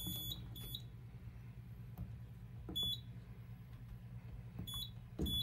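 Short high beeps from a Simplex 4100ES fire alarm control panel's keypad as its buttons are pressed, about five of them at uneven intervals, with a steady low hum beneath.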